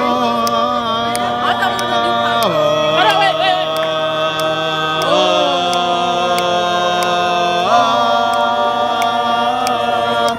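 A musical ensemble holding sustained chords, all parts moving together to a new chord about every two and a half seconds, with the notes sliding between changes.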